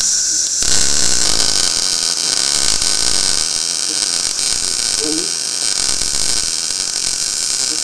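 Blue Demon BLUEARC 140MSI MIG welder laying a gas-shielded bead on thin steel: the arc gives a steady, loud crackle. The on-screen question is whether the wire speed is set too high.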